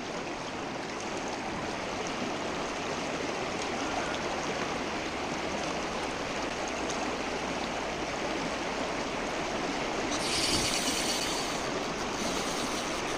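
Shallow, rocky mountain stream rushing steadily over stones in pocket water. A brighter, hissier rush swells for a couple of seconds about ten seconds in.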